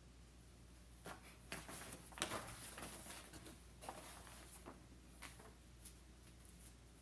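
A sheet of brown protective paper rustling and crinkling as it is handled and laid flat on a heat press: a run of faint, irregular rustles starting about a second in and dying away near the end.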